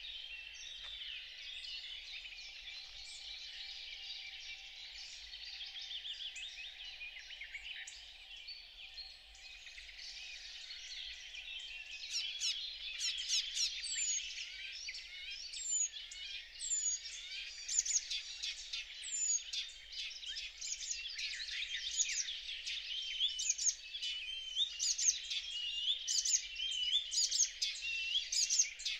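Icterine warbler singing: a loud, varied run of quick notes with phrases repeated several times, coming in about twelve seconds in over a fainter chorus of other songbirds.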